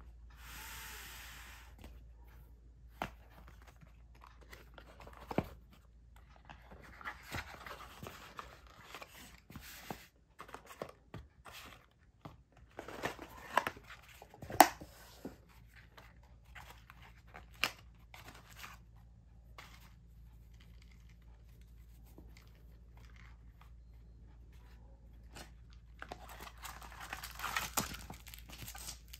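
Small cardboard boxes being handled: lids slid off, boxes set down with a few sharp taps, and paper rustling. Near the end, plastic wrapping crinkles as a Kydex sheath is unwrapped.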